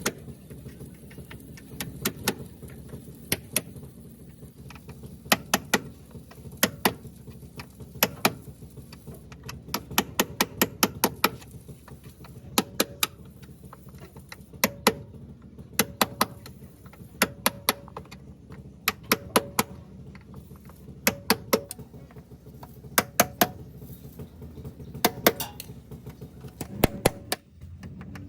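Repeated sharp hammer strikes on metal in quick irregular groups of two to five, some leaving a short ring.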